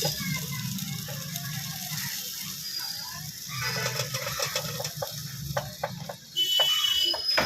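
Irregular light clicks and clatter, like utensils being handled at a food stall, over a steady low hum. Faint voices come in briefly about halfway through.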